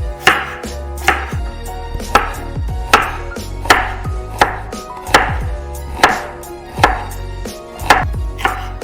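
A kitchen knife slicing shallots on a cutting board: evenly spaced sharp strokes, a little more than one a second, over steady background music.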